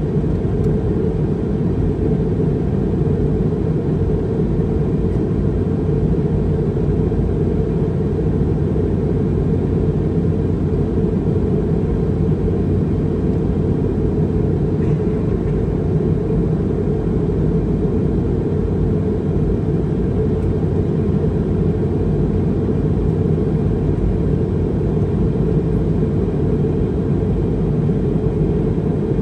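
Airbus A320 cabin noise in flight: a steady, low rumble of engines and airflow heard from inside the passenger cabin.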